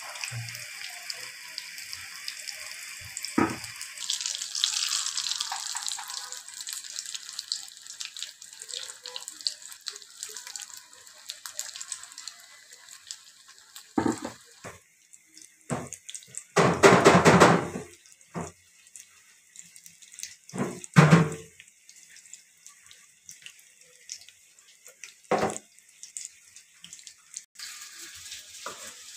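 Hot oil sizzling as battered fritters deep-fry in a cast-iron kadai: a steady hiss, strongest in the first few seconds and thinner later on. Several loud knocks or clatters break through, the biggest a burst of about a second near the middle.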